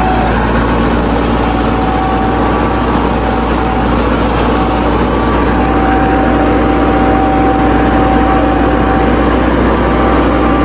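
Farm tractor's diesel engine running steadily while the tractor drives across loose sand, heard loud and close from the driver's seat.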